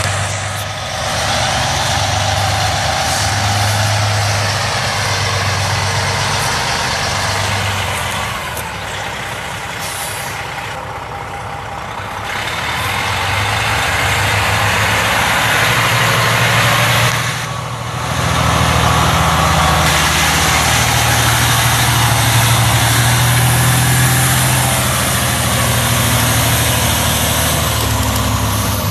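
Detroit Diesel Series 60 14.0-litre inline-six turbo diesel of a Freightliner Columbia semi tractor running while the truck is driven, its note rising and falling, with a brief dip in level about 17 seconds in.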